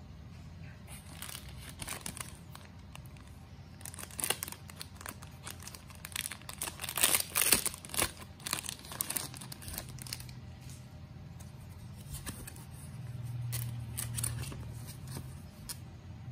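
Clear plastic packaging bag crinkling as a clear phone case is handled and pulled out of it, in uneven crackly bursts that are loudest about halfway through, then dying down to lighter handling noise.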